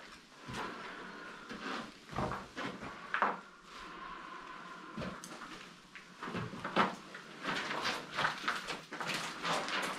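Irregular knocks, scrapes and crunches of people moving about inside an abandoned building, with no steady rhythm.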